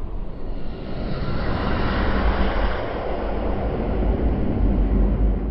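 A steady low rumble with a rushing hiss over it, swelling a little in the middle: a cinematic whoosh-and-rumble sound effect.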